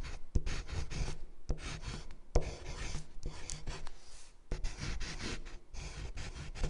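A pen scratching across paper in quick, scratchy strokes as a signature is written, with a few sharp taps among the strokes.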